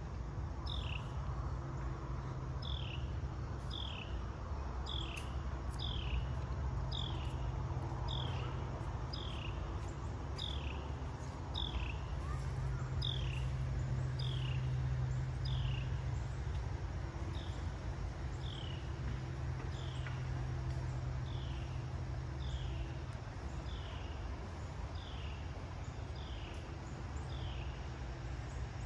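A short, high chirp that falls in pitch, repeated steadily a little faster than once a second and unbroken, over a steady low rumble.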